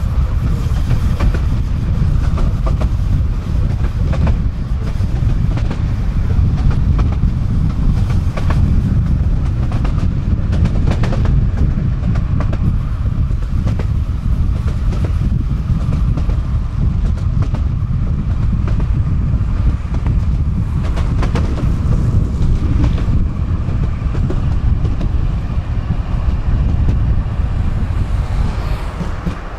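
Tram running along the track: a loud, steady rumble of wheels on rails, with scattered sharp clicks as the wheels pass over rail joints.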